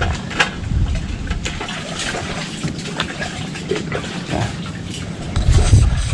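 Cooked mud crab being broken apart by hand: scattered sharp cracks and clicks of shell over rustling handling noise.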